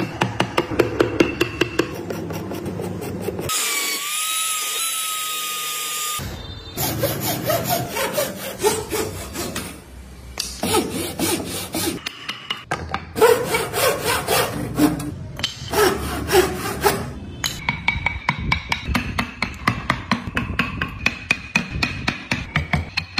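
Hand tools working hardwood: rapid strokes of chisels and carving tools scraping and shaving wood, in several short cut-together stretches. About four seconds in, a brief high whine with a hiss interrupts the strokes.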